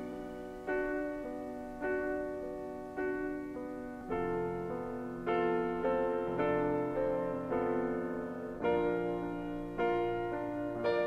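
Slow piano music: chords struck roughly once a second, each left to ring and fade before the next.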